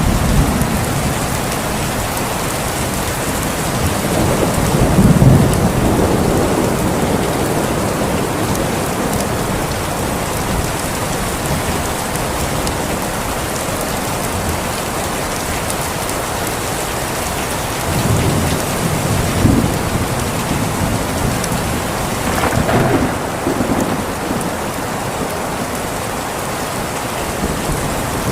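Steady heavy rain falling, with low rolls of thunder swelling and fading about four seconds in, again around eighteen seconds, and near the end.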